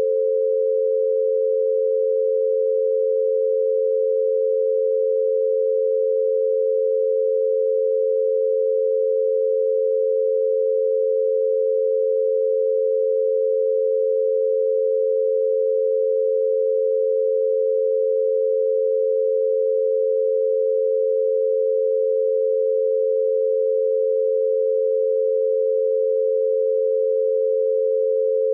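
An 88 Hz binaural beat: two steady pure sine tones a little apart in pitch, either side of about 500 Hz, held unchanging at an even level. It is made for headphones, where the stereo split of the two tones gives the 88 Hz beat.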